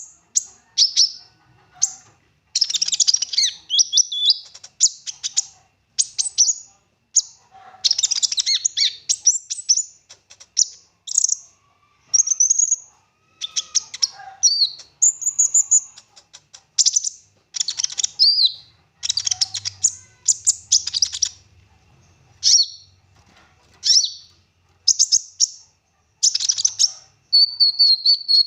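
A konin songbird in full song: quick runs of rapid, high-pitched chirps and trills delivered in short bursts with brief pauses between them. The rich song is mixed with phrases borrowed from other birds.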